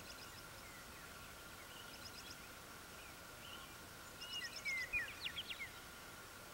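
Wild birds calling in spring: scattered short chirps and quick series of high notes, with a louder burst of sweeping whistled notes and a rapid trill about four seconds in.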